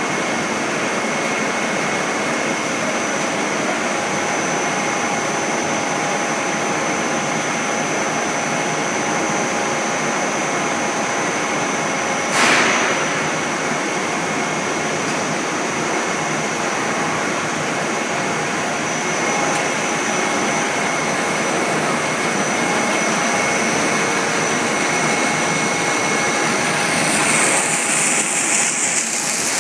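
Twin-screw snack extruder line running steadily: an even mechanical hiss with a thin high whine through it, and a brief burst of noise about twelve seconds in. Near the end a louder high hiss comes in as steam vents at the extruder die.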